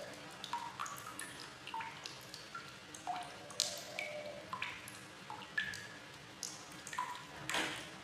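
Water drops falling into water: an irregular string of short, ringing plinks, about a dozen, with a slightly longer splash near the end.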